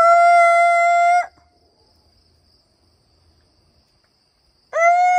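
A woman's voice imitating a chicken's alarm call for an aerial predator: two long, steady, high calls, the first at the start and the second beginning near the end, given to send the chickens to cover from a hawk. A faint steady insect buzz runs underneath.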